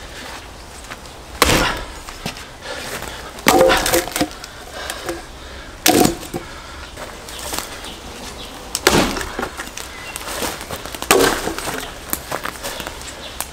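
Firewood being split by hand: five sharp blows about two to three seconds apart, each a hard knock with the wood cracking apart, and lighter knocks of pieces between them.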